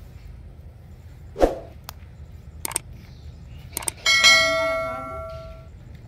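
Subscribe-button sound effect: a few sharp clicks, then about four seconds in a bright notification-bell chime that rings out and fades over about a second and a half. A short sharp sound comes about a second and a half in.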